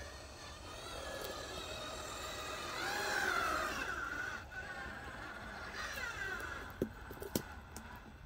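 Whine of a radio-controlled construction model's small electric motors, rising and falling in pitch and loudest about three seconds in, with two sharp clicks near the end.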